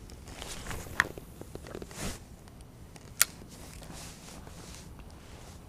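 Fishing rod and reel being handled for a cast: a click about a second in, a brief swish about two seconds in, then a sharp click a little after three seconds, over a steady faint hiss.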